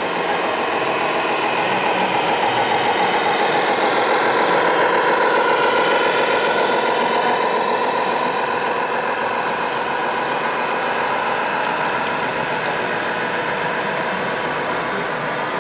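Radio-controlled scale Scania truck driving, a steady mechanical whine and hum whose pitch drifts slowly up and down with its speed, swelling to its loudest about five seconds in.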